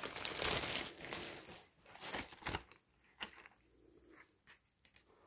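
Clear plastic bag crinkling as it is handled, for about the first second and a half. Then a few soft rustles and ticks as a card of embroidery floss is drawn out.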